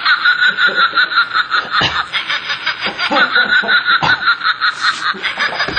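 People laughing: a long run of quick, high-pitched snickers.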